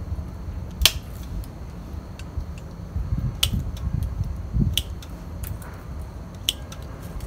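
Pruning shears snipping twigs off a ficus bonsai: about five sharp clicks at irregular intervals over a low background rumble.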